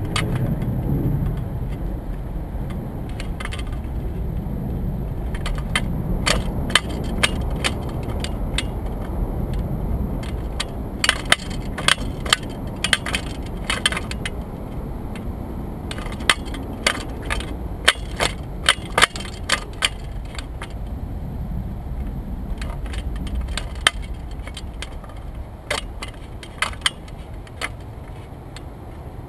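Wind buffeting the microphone of a pole-mounted action camera as a low rumble, with scattered sharp clicks and rattles, several coming in quick runs of a few a second.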